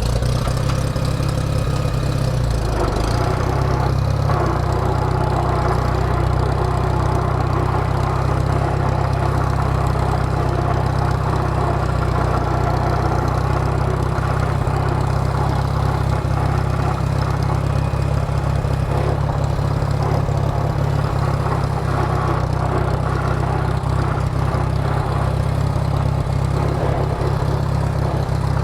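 Farmall 140 tractor's four-cylinder gasoline engine running steadily at an even speed, with no revving.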